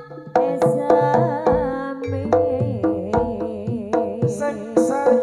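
Live Javanese jaranan music: hand-drum strokes at a brisk pace over a pitched melody, with one melodic line wavering up and down in pitch.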